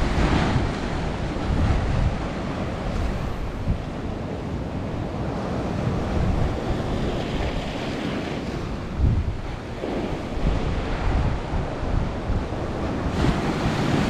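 Ocean swell breaking and washing over the rocks in repeated surges, with wind buffeting the microphone.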